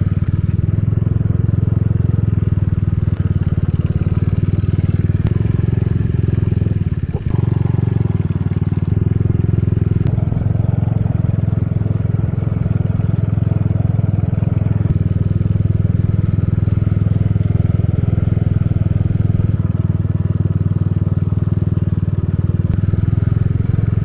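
Small motorcycle engine running steadily while riding along a dirt road, with a brief dip in its sound about seven seconds in.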